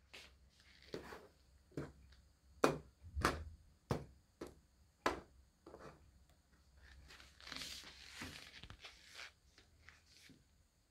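Irregular sharp clicks and knocks of small objects being handled on a wooden tabletop, with a short rustle about seven and a half seconds in.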